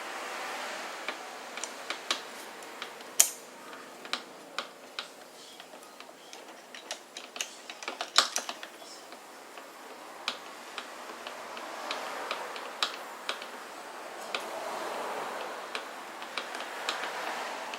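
Irregular clicks and taps of hand tools and small parts while the shift lever of a Tohatsu two-stroke 2 hp outboard is being worked on, over a soft, wavering hiss.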